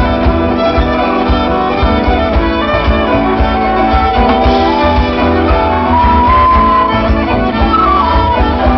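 Live band playing an instrumental piece: a violin carries the melody in long held notes that step higher about six seconds in, over electric guitars, bass guitar and drums.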